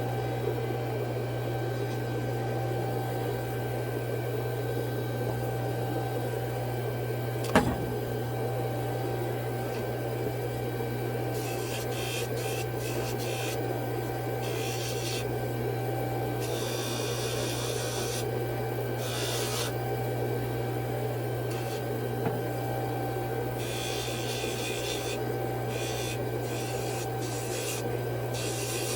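Jeweler's bench work: a steady machine hum, with irregular scraping strokes coming and going from about a third of the way in, and one sharp click about a quarter of the way in.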